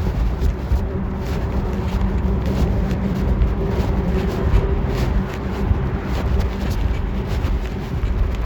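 Clothing rubbing and scratching against a phone's microphone inside a pocket during a bicycle ride, over a steady muffled rumble with a faint constant hum.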